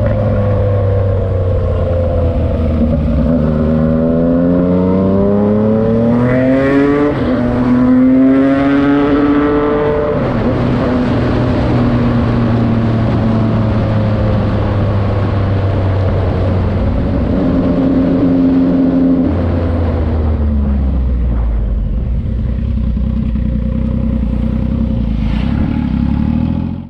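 Yamaha MT-09's inline-three engine through a Racefit Slash aftermarket exhaust. The revs fall and rise several times with sudden steps in pitch, then the engine runs steadily, drops lower near the two-thirds mark, and cuts off abruptly at the end.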